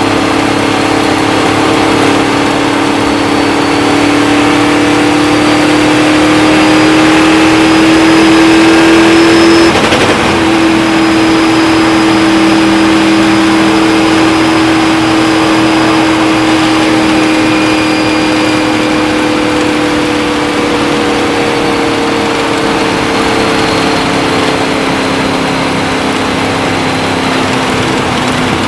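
Indy-style race car engine running hard at speed on an oval, heard from the open cockpit. Its note climbs slowly, breaks off for a moment about ten seconds in, then eases down gradually, all over a steady rushing noise.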